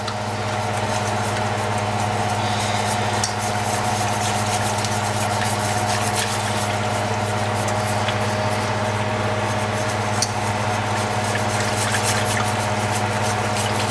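A steady mechanical hum, even throughout, over a hiss with many light ticks, as half-and-half is poured and whisked into a hot flour roux in a stainless skillet.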